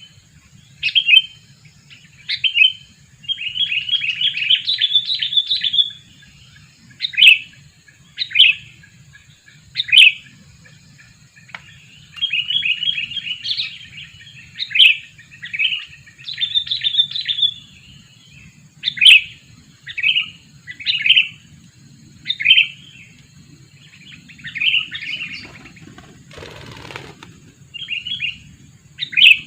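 Sooty-headed bulbul (kutilang) calling: loud, short, sharp calls about once a second, broken by several quick chattering runs of notes. A faint low hum runs underneath, and there is a brief rustling noise near the end.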